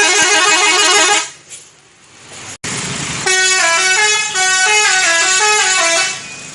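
Indonesian 'telolet' bus horn, a multi-tone musical horn, playing: first a rapid warbling trill of several tones that stops a little over a second in, then after a short gap a stepped tune of notes changing pitch that ends about six seconds in.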